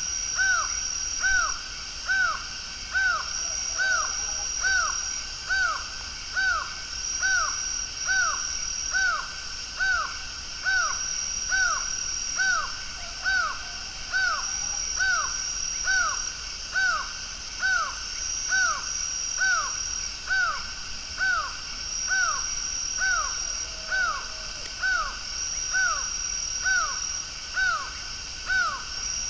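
Laughing falcon (acauã) calling: a steady series of falling notes repeated a little more than once a second. Behind it, a high thin steady tone comes and goes in stretches of a second or two.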